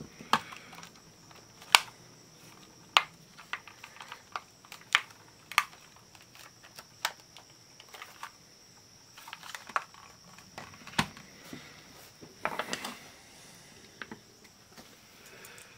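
Irregular clicks, taps and light scrapes of the black plastic case of a small portable cassette player being handled, pressed together and set down on a workbench, over a faint steady high-pitched whine.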